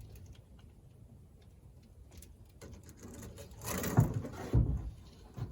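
Quiet handling noise: a short rustle about three and a half seconds in, then two or three dull knocks near the end.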